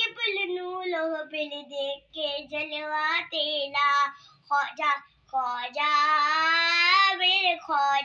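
A young boy singing a devotional song solo, without accompaniment, in phrases broken by short breaths. About six seconds in he holds one long note with a wavering vibrato.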